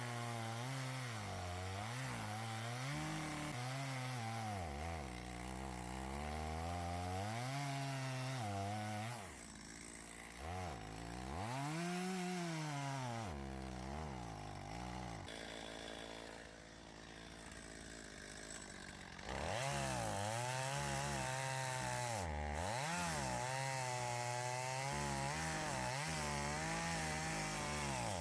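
Gas chainsaw cutting into a dead tree, its engine pitch rising and falling as the cut loads it. It drops back quieter about nine seconds in and again for a few seconds about halfway through, then revs up again.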